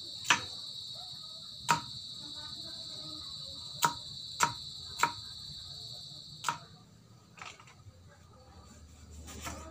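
Cleaver dicing a red onion on a wooden log chopping block: about six sharp knocks spaced a second or two apart, with a louder clatter at the very end. A steady high-pitched drone runs behind the knocks and stops about two-thirds of the way through.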